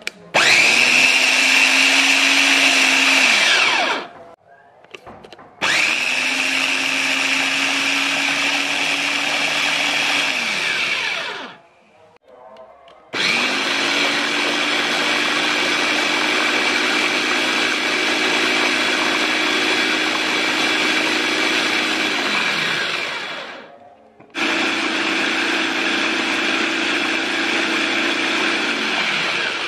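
Mitochiba electric food chopper's motor whirring as it purées steamed pumpkin with sugar, run in four bursts of a few to about ten seconds. Each burst starts abruptly and winds down in pitch when the top is released.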